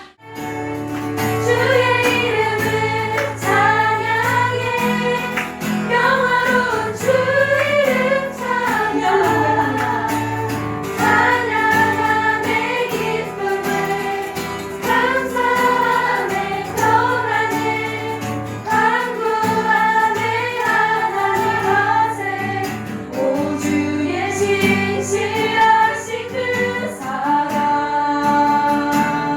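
A Christian worship song: several voices singing a melody together over instrumental backing, which starts right after a brief drop at the very beginning.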